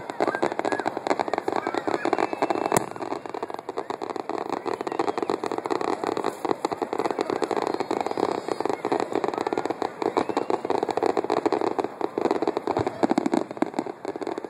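Fireworks finale going off in quick succession: a dense, continuous crackling and popping, with one sharp bang about three seconds in.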